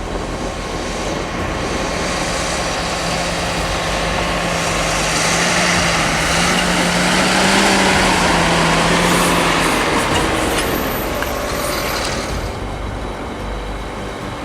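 A heavy vehicle's engine driving past: a steady engine note over a dense rumble that grows louder to a peak about eight seconds in, then fades away.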